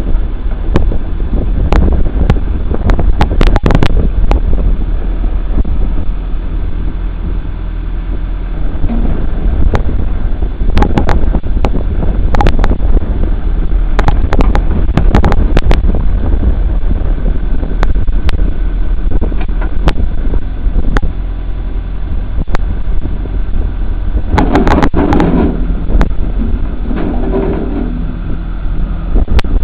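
John Deere 310 backhoe's engine running steadily, with frequent sharp knocks and clanks over it. The sound swells twice near the end.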